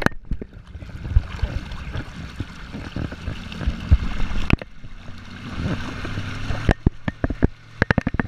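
Water rushing and splashing along the hull of a kneeboard being towed across a lake, with a steady low hum from the tow boat's engine under it. Near the end, a quick run of sharp slaps as water hits the board.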